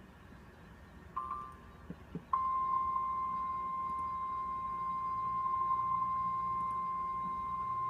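NOAA Weather Radio 1050 Hz warning alarm tone: one steady, unbroken high tone that starts a little over two seconds in and holds, over faint radio hiss. It is preceded by a short blip and two faint clicks.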